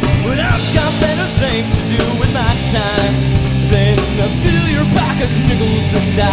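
Live rock band playing a song on electric guitars, bass guitar and drums, with a wavering melody line over a steady beat and regular cymbal strokes.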